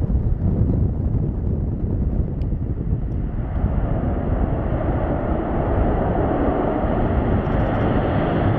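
Airbus A400M's four TP400 turboprop engines and propellers running as the transport rolls toward the listener across the sand. The sound is a dense low rumble that grows louder and fuller from about midway.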